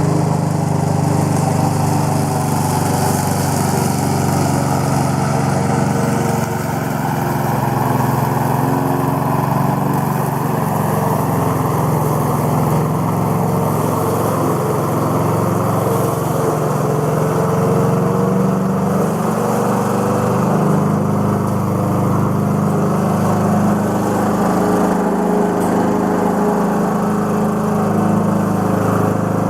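1986 Craftsman Eager One 4.0 HP walk-behind mower's single-cylinder engine running steadily, with a brief dip in level about six seconds in. Its carburetor is freshly overhauled.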